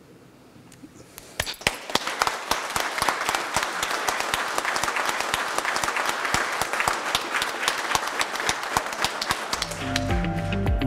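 A room of people applauding, starting about a second and a half in and carrying on steadily; near the end, background music with a strong bass line comes in.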